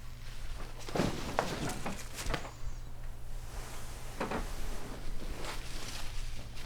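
A few scattered knocks and clunks over a steady low hum.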